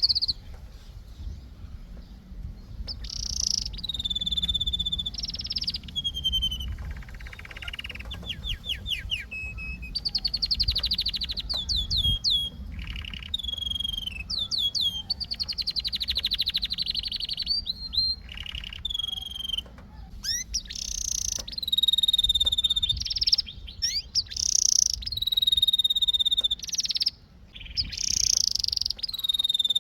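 Domestic canary singing a long, varied song: rapid trills, quick falling whistled notes and held steady notes, phrase after phrase with brief pauses, over a low background rumble.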